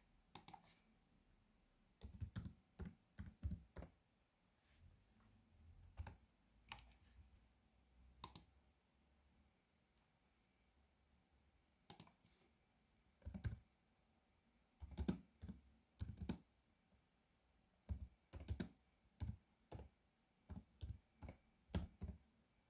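Typing on a computer keyboard: faint key clicks in short quick runs with pauses between, the last run near the end.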